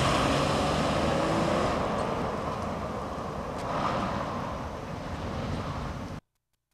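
A car driving away, its engine and tyre noise fading gradually with distance; the sound cuts off suddenly about six seconds in.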